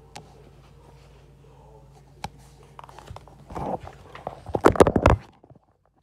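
Handling noise from a phone: fingers rubbing and knocking against the phone's microphone as it is picked up and turned, a scatter of clicks and rustles loudest about four to five seconds in, then the sound cuts out abruptly.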